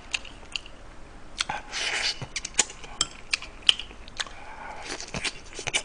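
Close-miked eating of braised chicken stew: chewing and mouth smacks heard as a string of short sharp clicks, with a few brief wet smears of sound.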